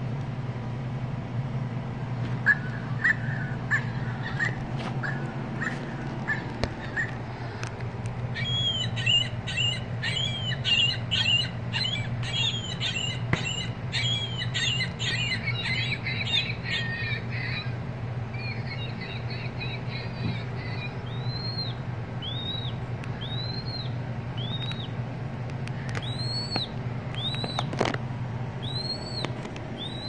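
Recorded bird calls played from the built-in sound boxes of squeezed Audubon plush birds. Several different calls follow one another: a run of short calls, then a busier song, then a string of arched whistled notes about one a second.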